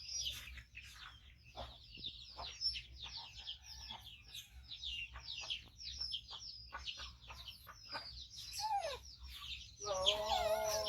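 Baby macaque squeaking over and over in rapid, high-pitched chirps, begging to be fed, with a lower drawn-out call near the end.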